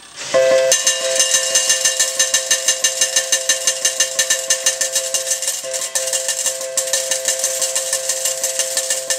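IGT Super Mag 7 slot machine ringing its payout rollup as the multiplied 3,500-credit win counts onto the credit meter. It is a fast, steady run of electronic bell tones, about five a second, that starts suddenly just after the start.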